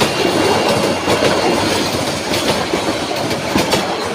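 Bangladesh Railway passenger train's coaches passing close by at speed: a steady loud rush with the wheels clattering over the rail joints.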